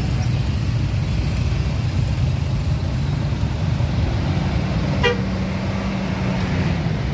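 Steady low rumble of road traffic, with one short, sharp horn toot about five seconds in.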